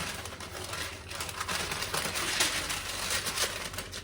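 Kitchen handling noises: rustling and a run of light clicks and knocks as food and packaging are handled.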